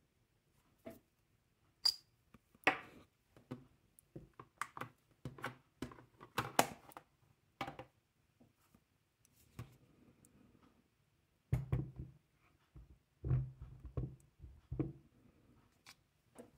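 Irregular clicks and knocks of small objects being handled and set down on a wooden tabletop, with a run of duller, heavier knocks in the second half.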